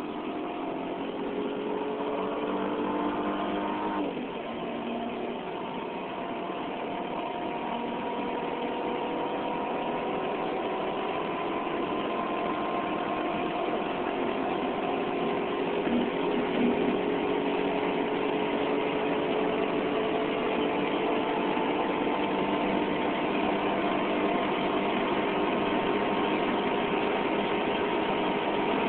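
Dodge Stratus R/T's engine accelerating hard, heard from inside the cabin. About four seconds in, its note drops at a gear change, then climbs slowly and steadily as speed builds, over a steady rush of road and wind noise.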